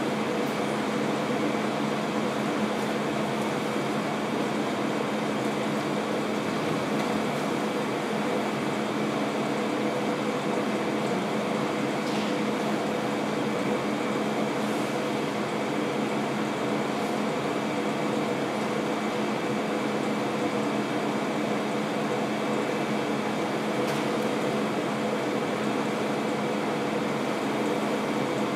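Steady hum of room air conditioning, an even whirr with a few held tones in it.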